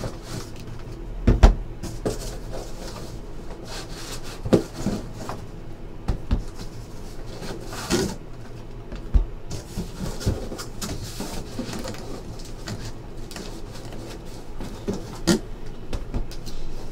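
Shrink-wrapped 2017 Topps Inception baseball hobby boxes being set down and stacked on a table: scattered knocks and thumps, the loudest about a second and a half in.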